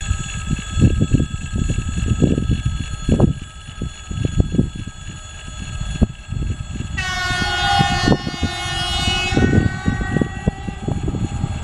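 3ES5K electric locomotive sounding its horn: one long blast starting sharply about seven seconds in, loud for about two and a half seconds and then trailing off more weakly, over gusts of wind on the microphone.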